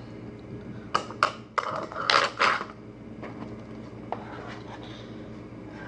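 Measuring cup knocking and scraping against a bowl as pancake batter is scooped out: a few sharp clicks and short scrapes between one and two and a half seconds in, then only a low steady background.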